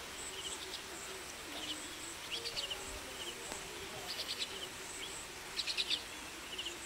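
Birds chirping outdoors in short repeated calls and quick chirp series, the loudest series a little before the end, over a faint high steady insect buzz.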